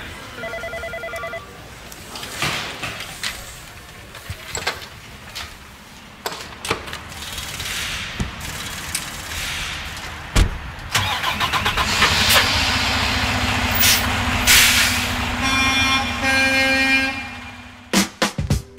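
Edited sound montage: a few electronic beeping tones in the first second or so, scattered clicks, then a semi-truck engine starting about ten seconds in and running with a steady low hum. Near the end it cuts off and a beat of intro music begins.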